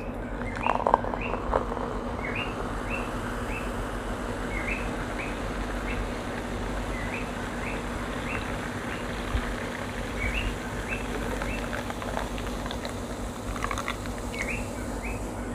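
A small bird chirping over and over in the background, short high chirps about every half second, over a steady low hum. A couple of brief knocks about a second in.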